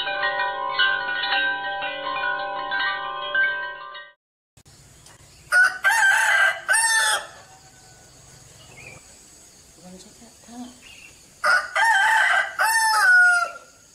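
A chime rings for about four seconds and stops, then a rooster crows twice, about six seconds apart. The crows are the loudest sounds.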